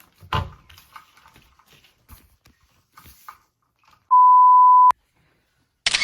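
A single steady, loud high beep of a pure tone lasting just under a second, about four seconds in, of the kind an editor lays over the sound track as a bleep. A knock comes just after the start, and a short burst of hiss comes near the end.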